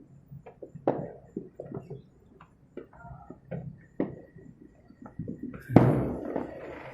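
Distant New Year's fireworks going off in scattered, irregular pops. A thin steady whistle runs for about a second and a half, then the loudest bang comes about six seconds in, with a rumbling tail that dies away slowly.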